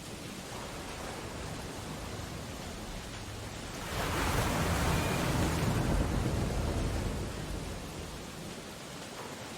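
Storm surf and rain in a steady noise. A wave breaks about four seconds in, swelling suddenly and dying away over the next few seconds.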